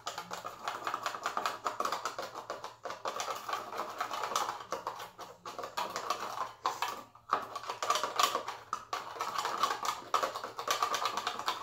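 Scissors stirring a watery mix in a plastic measuring cup, the blades clicking and tapping rapidly against its sides, with a few short pauses.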